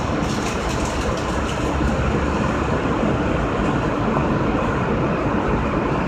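Steady rumble and hum inside the cab of an R160A subway car, with a few light clicks in the first second and a half.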